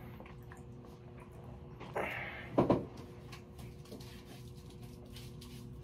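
Faint steady hum, with a brief rustle about two seconds in, followed shortly after by a single short knock.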